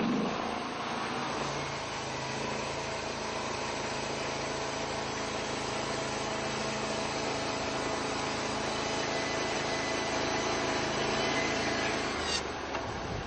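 Portable band sawmill running: its engine at a steady speed while the band blade saws through a log. The sound drops away sharply near the end.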